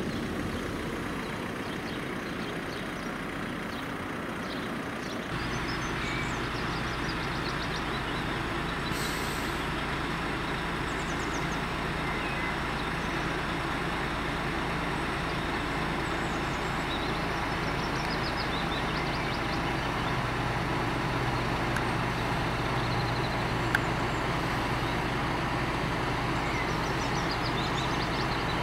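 Diesel engine of a parked Leyland DAF 75-300 fire engine running steadily at idle, a constant low hum that sets in about five seconds in.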